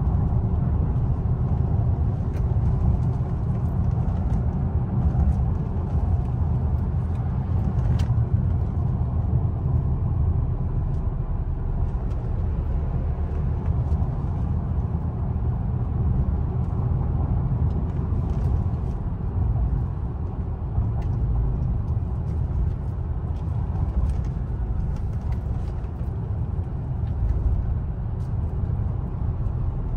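Steady low rumble of a car driving on a paved road, heard from inside the cabin: engine and tyre noise at cruising speed.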